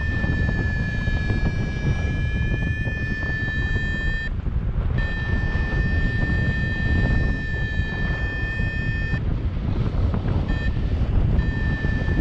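Paragliding variometer sounding a steady high tone, unbroken for about four seconds, then after a short break for about four seconds more, then in brief snatches near the end. A steady tone rather than beeps is how a vario signals sinking air. Under it, wind rushes over the microphone in flight.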